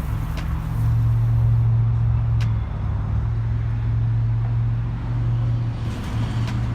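A steady low engine hum, like a motor vehicle running, over background noise, a little louder about a second in.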